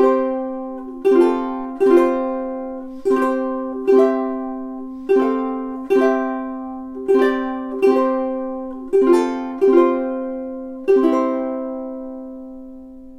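Pete Howlett Revelator koa-top thin-body tenor ukulele playing a slow run of chords, one struck about every second and each decaying before the next; the last chord, near the end, is left to ring out and fade.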